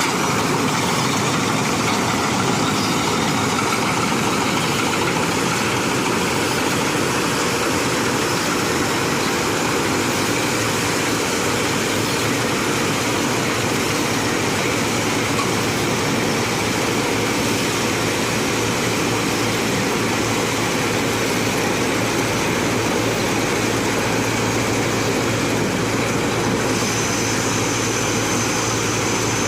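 Mini combine harvester running steadily, its engine and machinery making a dense, even noise. A thin high whine joins in near the end.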